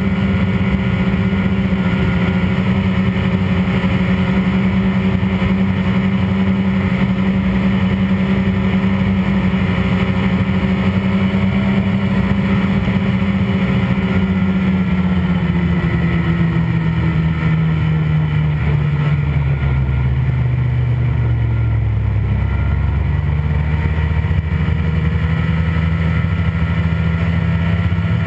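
Ski-Doo Grand Touring 600R snowmobile's two-stroke twin engine running steadily under way, its revs dropping about halfway through as the sled slows, then climbing a little near the end.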